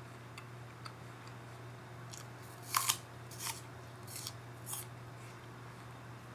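A run of crisp, sharp crunches from biting and chewing a raw apple, the loudest a quick double crunch about three seconds in, with a few more over the next two seconds. Faint, regular light ticks run underneath.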